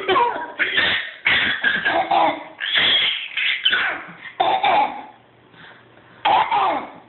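Coughs traded back and forth between two people in quick succession, then a short pause and one more cough near the end.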